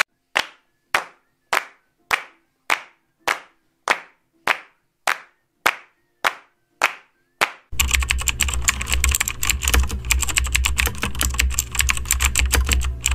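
A single person's slow clap: about thirteen lone claps, evenly spaced a little over half a second apart. About eight seconds in, this gives way to rapid computer-keyboard typing over a low hum.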